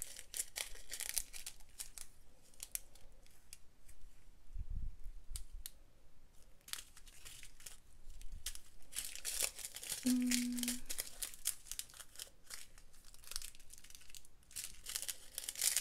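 Small plastic bags of diamond painting drills crinkling as they are picked up and set down on a plastic-film-covered canvas, in irregular clusters of rustling.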